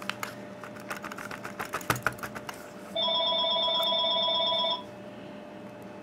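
Small metallic clicks of a brass padlock cylinder and its pins being handled, then about three seconds in a telephone rings once for nearly two seconds, a steady electronic ring.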